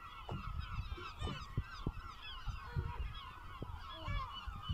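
A seabird colony calling: many birds at once giving short, overlapping calls, with occasional low thumps underneath.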